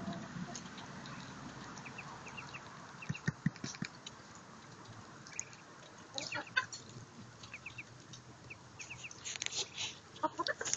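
Three-week-old Muscovy ducklings peeping in runs of short, high chirps, mixed with hens clucking. A few brief low thumps come about three seconds in.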